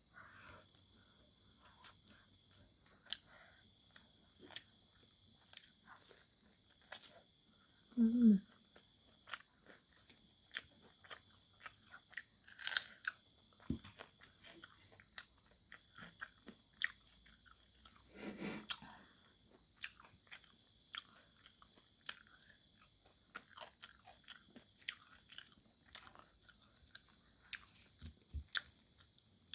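Close-up chewing and biting of fried pork: many short wet clicks and crunches from the mouth, with a short falling vocal hum about eight seconds in.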